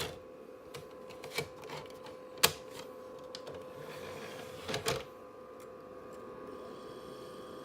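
PlayStation 2 with a disc loaded: a steady hum with scattered sharp clicks and ticks, a loud click about two and a half seconds in and a few more near five seconds. After that a steadier whir sets in.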